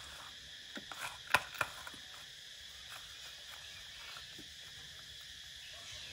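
A few sharp taps about a second in, the loudest two close together, over a steady high background hum.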